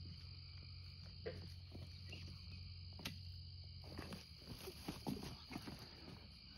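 Night chorus of crickets chirring steadily, with rustling and crackling of feet and a gig pole moving through dry leaves and brush, busiest from about four to five and a half seconds in.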